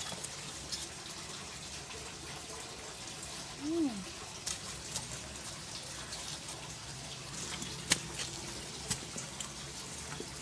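Metal trowel blade digging and scraping into damp garden soil, with scattered small clicks and crumbling grit. A short sound rising and then falling in pitch comes about four seconds in, and a sharp click near eight seconds in is the loudest moment.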